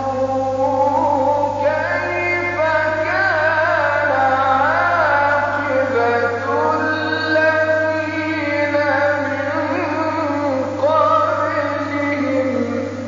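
A man reciting the Quran in melodic tajweed style, holding long ornamented notes that waver in pitch, with short breaks between phrases; the voice falls away near the end.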